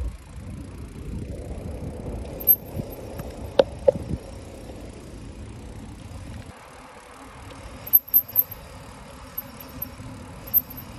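Bicycle rolling on an asphalt road, heard from a handlebar-mounted phone: a steady rumble of tyres and wind. Over it come a few sharp rattling clicks, three in quick succession about eight seconds in, from the bike and its loose handlebar phone holder jolting on the road.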